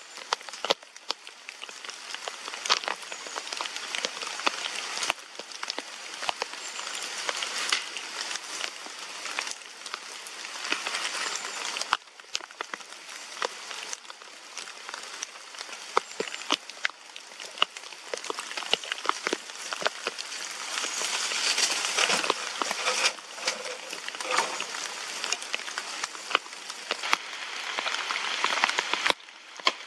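Rain pattering steadily, with many sharp, irregular clicks and crackles over it; the hiss swells and eases at times.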